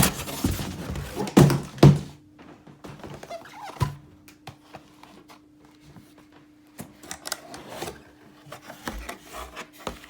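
A boxed car amplifier and its packaging being handled: a few loud thunks in the first two seconds, then lighter knocks, clicks and rustles.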